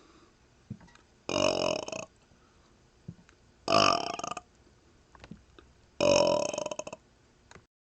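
A man burping three times in a row, each belch pitched and lasting under a second, about two and a half seconds apart.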